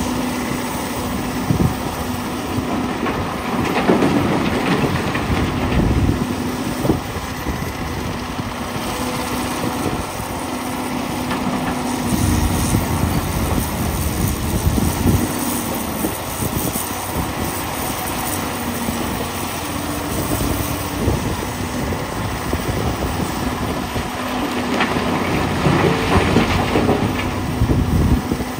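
Komatsu PC450LC hydraulic excavator's diesel engine running steadily under load while the bucket digs and scrapes through broken rock. Near the end, a load of rock crashes and rattles into the steel bed of a dump truck.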